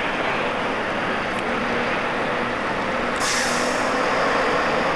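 Heavy truck's diesel engine running at low revs while it manoeuvres slowly, with a steady hum. A sudden hiss begins about three seconds in.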